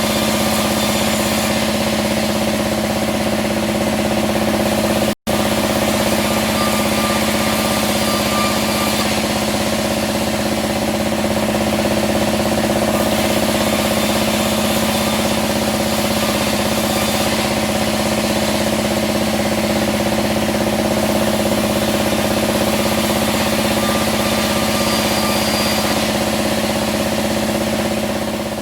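Sawmill band saw running steadily at a constant pitch, with a brief cut-out about five seconds in.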